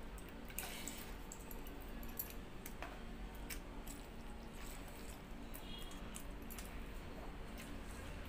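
Close-up eating sounds of wet fermented rice (pakhala) eaten by hand: moist chewing and squishing, with scattered small clicks, over a steady low hum.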